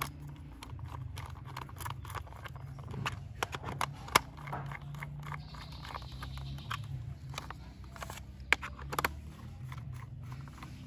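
Small hand screwdriver driving screws into the plastic underside of a toy car, with irregular clicks and taps of the plastic being handled. There are sharper clicks about four seconds in and again near nine seconds, over a faint steady low hum.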